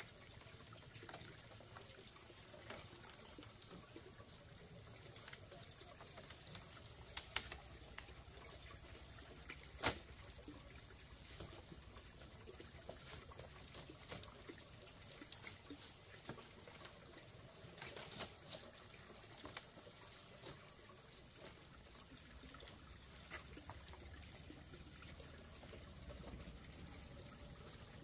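Faint trickling water, with scattered sharp clicks and knocks, the loudest about a third of the way through.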